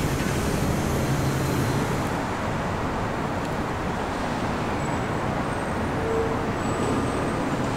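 Subway train rolling slowly through a rail yard: a steady low rumble, with a faint whine coming in near the end.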